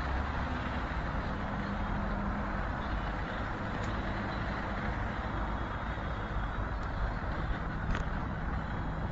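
Steady background rumble of road traffic, with a few faint clicks.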